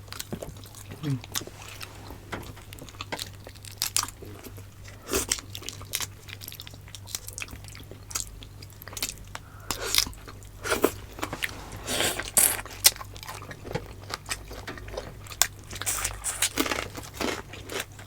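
Close-miked eating: people chewing and biting food, with irregular wet clicks and short crunches.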